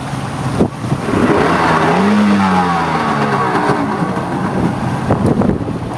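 Boat engine coming back to life after stalling, louder from about a second in, its pitch rising and then falling back as it is revved.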